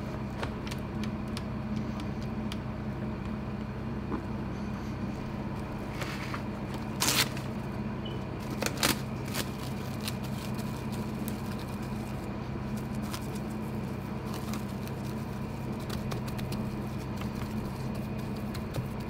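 Plastic cling wrap crinkling as it is pulled out, laid over a square metal mould and pressed down by hand, with a few louder crackles between about six and nine seconds in. A steady low hum runs underneath.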